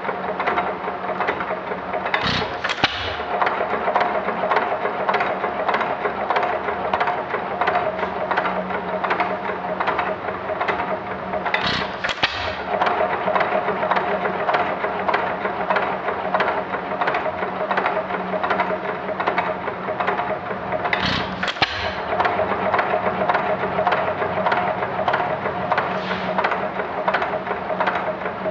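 1919 Economy 2½ hp Model E hit-and-miss engine running unloaded: a fast, even clatter throughout, with three louder firing strokes spaced about nine to ten seconds apart as it fires and then coasts.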